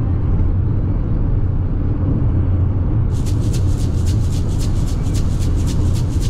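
Car driving at highway speed, heard from inside the cabin: a steady low road and engine rumble. About halfway through, a fast, even, high-pitched ticking joins in.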